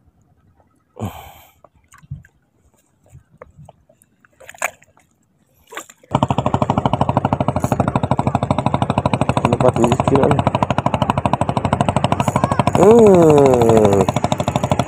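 A few light knocks and handling clicks, then a small boat engine starts abruptly about six seconds in and runs loudly with a rapid, even knocking beat.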